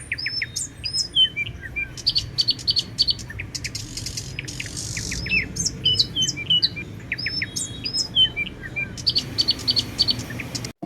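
Birds chirping and whistling: a busy run of short, high calls and quick whistled notes, some sweeping sharply up or down in pitch, which stops abruptly near the end.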